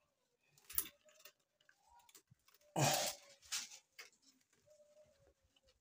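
Handling noise of a plastic radiator side tank being fitted onto the radiator's finned metal core: a short knock just under a second in, a louder scraping rustle about three seconds in, then a smaller knock and a few faint clicks.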